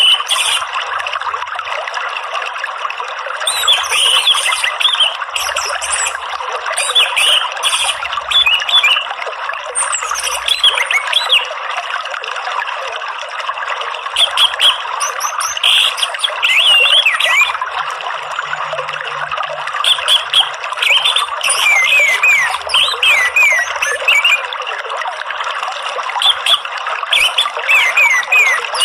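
Orange-headed thrush song over a steady sound of running water: short phrases of quick, sweeping whistled notes come every few seconds, with gaps between them, while the water trickles throughout.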